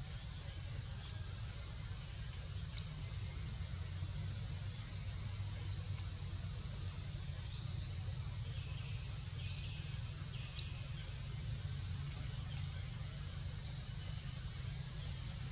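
Outdoor ambience: a steady, high-pitched insect drone with short bird chirps scattered through it, more frequent in the second half, over a low rumble.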